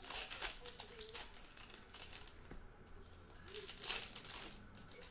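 Foil trading-card pack wrapper crinkling as it is torn open by hand, in several short bursts.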